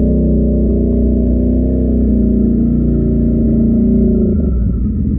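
ATV (quad) engine running steadily at a constant pitch, its tone shifting slightly about four seconds in.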